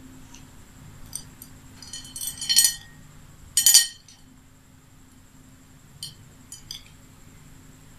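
Beads and faux pearls clinking and rattling against a plate as they are picked out by hand: two louder clusters of clicks about two and three and a half seconds in, then a few light clicks near six seconds.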